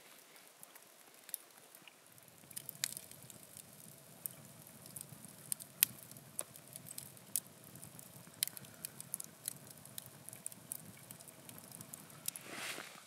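Wood campfire crackling, with sharp irregular pops and snaps over a low steady rush of flame. A brief rustling swell comes near the end.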